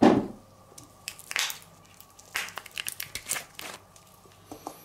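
Kitchen handling noises while seasoning: a thump right at the start, then a few short crinkling, rustling noises.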